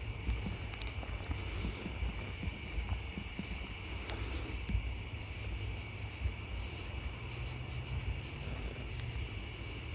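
Night insect chorus of crickets: a steady high trill with a fainter pulsing chirp above it, repeating a few times a second, over a low rumble.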